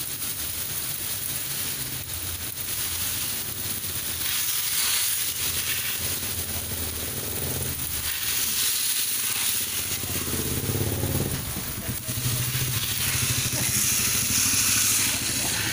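Garden hose pistol nozzle spraying a fan of water onto leaves and wet pavement: a steady hiss with splashing. A low hum joins about ten seconds in.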